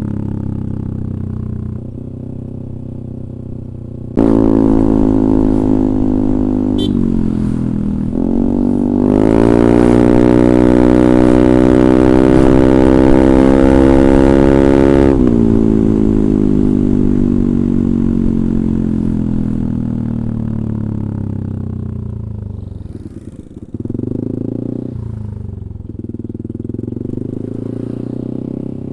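Yamaha Aerox 155 single-cylinder four-stroke scooter engine through a DSM Cobra racing exhaust, idling and then revved. It jumps up suddenly about four seconds in, climbs to high revs and holds there for several seconds, then slowly falls back toward idle, with another short blip of the throttle near the end.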